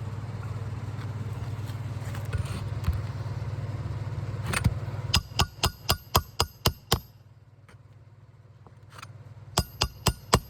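A steady low hum, then a quick run of about eight sharp, ringing hammer strikes around the middle, and three more near the end: a shingle hammer driving a roofing nail.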